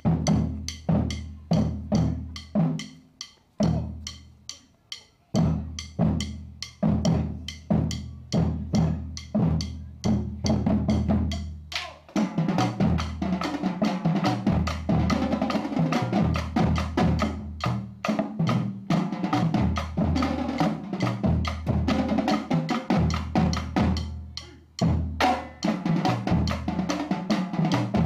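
Marching drumline playing a cadence: spaced, syncopated drum strokes with low pitched bass drums and short pauses, then from about twelve seconds in the whole line plays a dense, continuous passage with snare rolls. It thins out briefly near twenty-four seconds and comes back in on a sharp accent.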